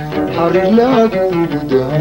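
Man singing a Somali song in a gliding, ornamented line over plucked oud accompaniment.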